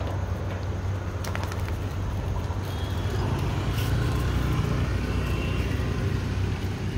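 Low, steady rumble of street traffic that swells around the middle as a vehicle passes, with a few faint clicks.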